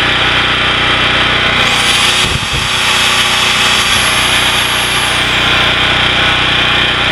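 The 9 HP Briggs & Stratton Vanguard OHV engine of a 5000-watt portable generator runs steadily. About two seconds in, a high whine rises, holds for about three seconds and falls away while the engine note dips briefly: a corded Craftsman 3/8-inch electric drill running off the generator and loading the engine.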